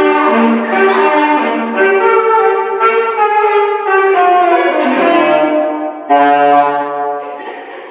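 Saxophone played loudly at close range: a quick run of changing notes, a slide down to lower notes about five seconds in, then a long held low note.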